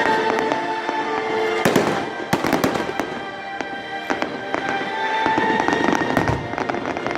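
Fireworks bursting in rapid, irregular succession, with a dense cluster of sharp cracks about two seconds in, over music playing.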